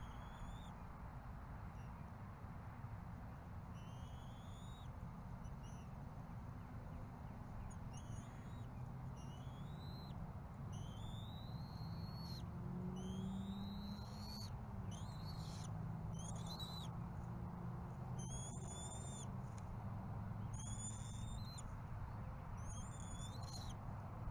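Bald eagle calls: a series of thin, high, upward-sliding whistled notes, a few at first and then about one a second through the second half, over a steady low rumble.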